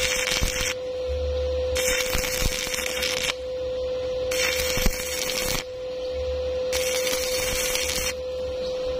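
Stick-welding arc crackling and hissing in stretches of about a second or so, cutting in and out in an even rhythm, with a steady tone underneath.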